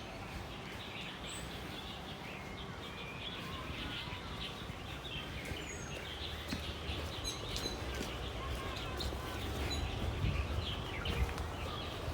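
Small birds chirping and twittering over steady outdoor background noise. A low rumble grows louder near the end.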